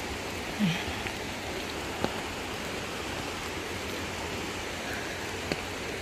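Steady hiss of rain falling on a wet stone path and the vegetation beside it, with a couple of faint clicks.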